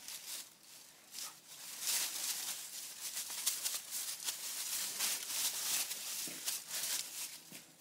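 Two dogs playing tug of war with a toy: a busy run of scuffling, scratchy rustling and small clicks, getting louder about two seconds in.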